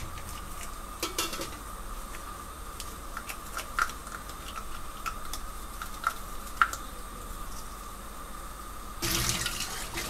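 A soft bottle brush scrubbing a plastic baby bottle, with scattered light clicks and knocks of brush and plastic. About nine seconds in, the tap comes on and water starts running into a stainless-steel sink.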